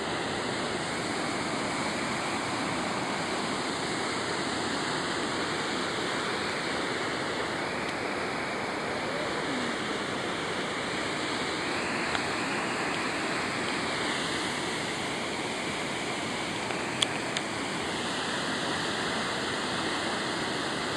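Stigfossen waterfall at Trollstigen pouring down the rock face: a steady, dense rush of falling water. A couple of brief clicks cut through it near the middle and later on.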